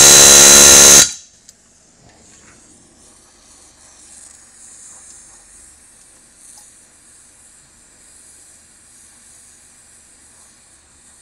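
A loud buzzing tone, rich in overtones, cuts off about a second in. After it comes the faint, steady hiss of an oxy-fuel torch flame heating a steel rivet red hot.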